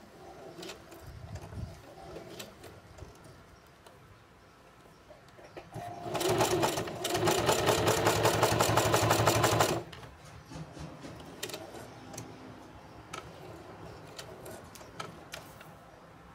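Singer Heavy Duty 4432 sewing machine stitching through a leather strap. It runs fast for about four seconds in the middle, a rapid even clatter of about nine stitches a second over a steady motor hum. Before and after that there are only quiet clicks and handling noises.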